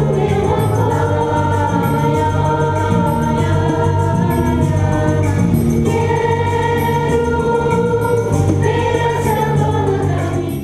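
Choral music: a choir of voices singing slow, held chords that change every second or two.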